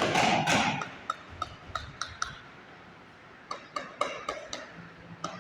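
A hard tool tapping on ceramic tile, a run of short, ringing clinks at about four taps a second, then a second run a little later. A louder scraping noise opens the stretch.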